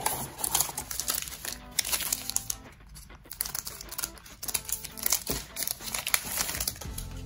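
Trading-card pack wrapper crinkling and crackling as it is handled, a dense run of sharp crackles.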